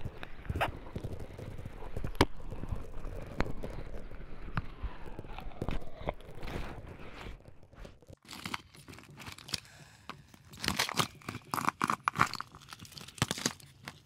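Crackling, crunching noise with scattered sharp clicks over a low rumble. A little past halfway the rumble drops away, and a sparser run of crunches and crackles follows.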